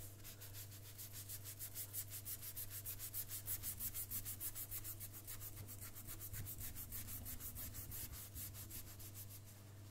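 Wet sponge scrubbed briskly back and forth on the deck of a Technics SL1210MK2 turntable, a quick, even rhythm of rubbing strokes.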